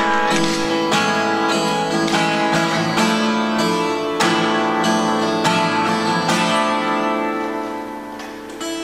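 Acoustic guitar playing strummed and plucked chords in a steady rhythm, softening a little near the end before a fresh chord.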